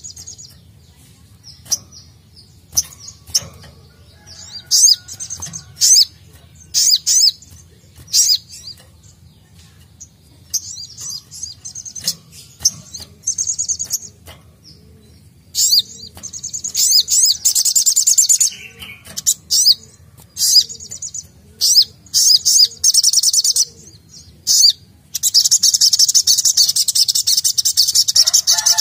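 Male olive-backed sunbird (sogok ontong) singing: short high-pitched chirps scattered through the first half, then long rapid trilling runs, the longest near the end.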